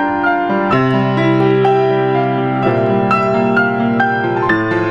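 Slow piano music: held chords changing about every two seconds, with single notes struck over them.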